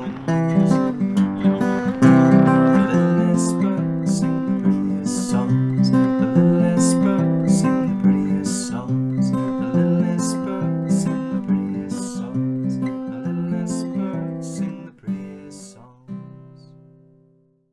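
Instrumental acoustic guitar music, strummed in a steady rhythm, slowly getting quieter and ending on a last chord that rings out and dies away.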